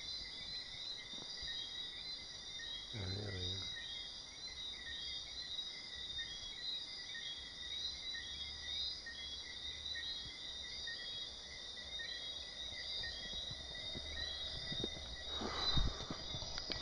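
Steady night chorus of chirping insects, a dense high-pitched trilling. A brief low hum comes about three seconds in, and a few knocks and handling thumps near the end.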